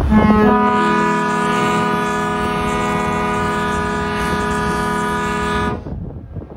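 Ferry's horn sounding one long, steady blast of about five and a half seconds, its upper notes filling in over the first half second, then cutting off suddenly.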